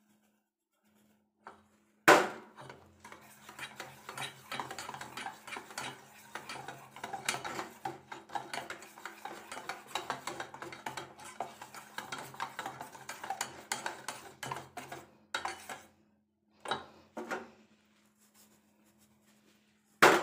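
Wire whisk clattering against the sides of a metal bowl as semolina cake batter is stirred: a sharp knock about two seconds in, then a dense run of small clicks until about fifteen seconds, and a few separate taps after that.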